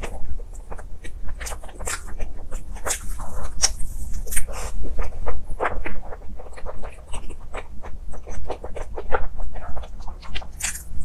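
Close-miked chewing and wet lip-smacking of a soft cream-filled roll: a dense run of small irregular clicks and squelches.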